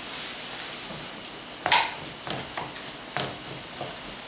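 Ground beef, corn and peppers sizzling in a skillet over a gas burner while a slotted spatula stirs and scrapes the pan. There is a steady frying hiss, with a few sharp scrapes of the spatula against the pan; the loudest comes about halfway through.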